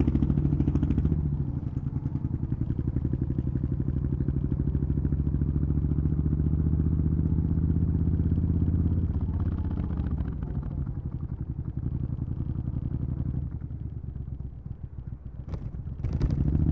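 2003 Suzuki Intruder 1400's V-twin engine running through Vance & Hines Classic II pipes while riding, a steady, closely spaced exhaust beat. It eases off about thirteen seconds in and picks up again near the end.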